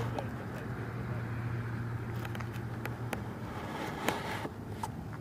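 Low steady hum of a vehicle engine running, dropping away about three seconds in, with a few faint clicks.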